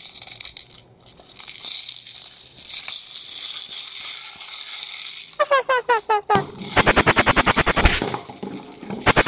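Hard plastic toy engine with a clear drum of loose pieces inside, rattling as it is shaken and turned in the hands. About five and a half seconds in, a quick run of short rising chirps follows, then a fast, even clicking beat.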